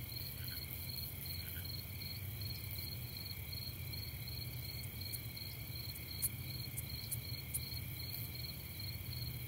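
Night insect chorus: several steady high trills at different pitches, one of them pulsing about three times a second, with a few faint ticks in the second half.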